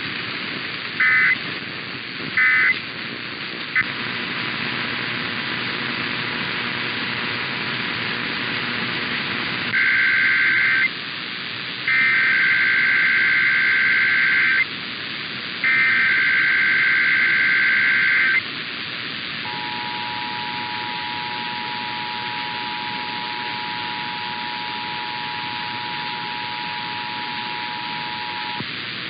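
Emergency Alert System tones received over the radio with a steady static hiss. Three short end-of-message data bursts come first. About six seconds later come three longer warbling SAME header data bursts, and from about two-thirds in the steady two-tone attention signal (853 and 960 Hz) sounds, broken briefly near the end.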